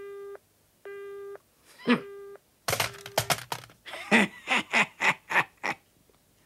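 Telephone busy tone: a steady beep switching on and off about once a second, heard after the other party has hung up, which stops a little after three seconds in. Over the middle, a few sharp clicks and a quick run of short voice sounds without words, each falling in pitch.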